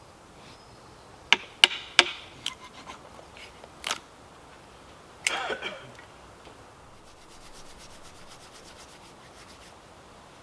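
Dry chestnut bark being broken and rubbed by hand to make a tinder bundle: several sharp cracks and snaps, a louder scraping rub about five seconds in, then a fast, faint rasping of fibres being worked.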